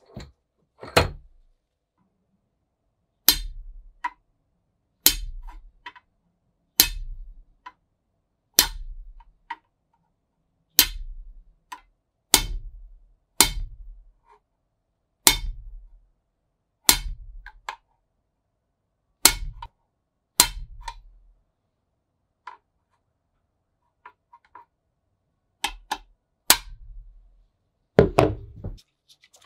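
Single hammer blows on a steel rod resting on an anvil, about one every one and a half to two seconds, each a sharp metallic strike with a short ring and a dull thud, pausing for a few seconds about two-thirds through.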